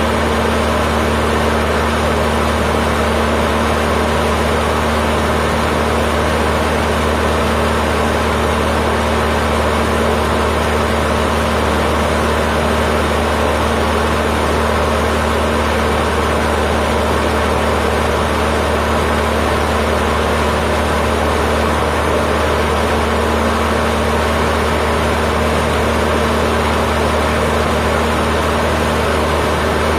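Cessna 152's four-cylinder Lycoming O-235 engine and two-blade propeller running steadily in flight, heard from inside the cockpit as a constant drone with no change in pitch.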